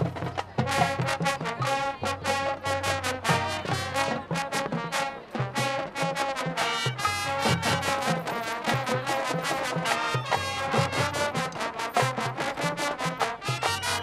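High school marching band playing its field show: brass section over a steady beat.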